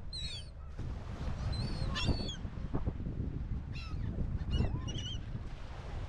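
Gulls calling around the microphone: about four clusters of high, wavering squawks, with wind rumbling on the microphone underneath.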